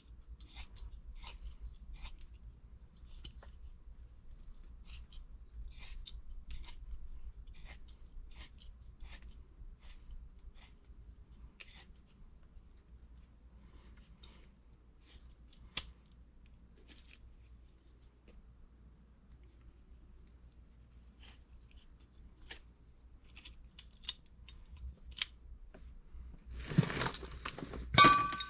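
Tubing cutter being spun around a copper pipe, its cutting wheel giving faint, irregular clicks and ticks. Near the end comes a louder clatter with a brief metallic ring.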